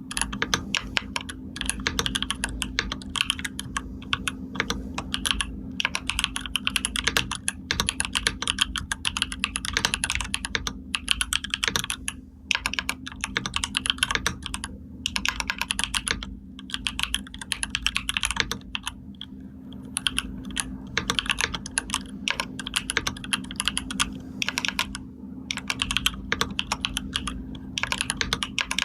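Continuous typing on a computer keyboard: dense runs of key clicks, broken by brief pauses every few seconds.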